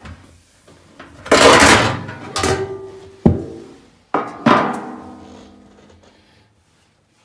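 Metal front cover of a Baxi Platinum combi boiler being taken off and set down: a scrape, then a few knocks, each leaving a ringing tone that fades. The last knock, about four and a half seconds in, rings the longest.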